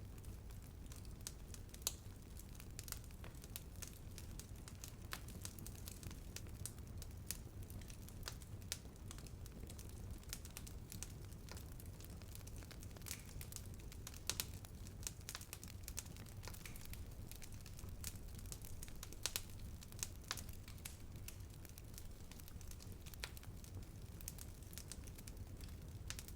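Bonfire burning: wood crackling with many irregular small snaps and a few sharper pops over a low, steady rumble.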